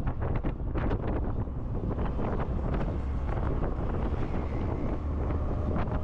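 Wind buffeting the microphone in uneven gusts, with a heavy low rumble.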